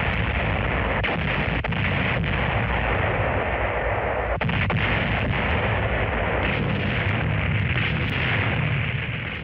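Naval gunfire and battle noise: a loud, continuous din broken by sharp gun reports every second or two, fading out near the end.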